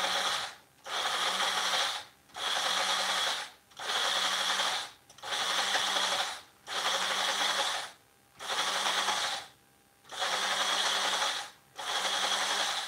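Magic Bullet personal blender pulsed in about nine short bursts of a second or so each, with brief pauses between them, blending cottage cheese with herbs until smooth.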